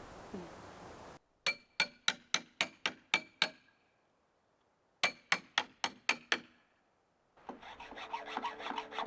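Hand tool working on an old wooden pallet: two quick runs of sharp strokes, about three a second, each with a short metallic ring. Then a rougher scraping and rubbing.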